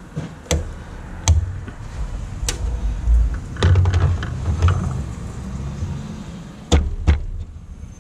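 About eight sharp clicks and knocks at uneven intervals over a low handling rumble, as hands and tools work on the car's plastic trim.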